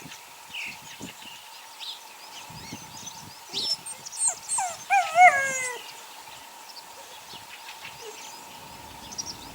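Eight-week-old puppies whimpering: scattered short high squeaks, and about five seconds in one louder wavering whine lasting under a second.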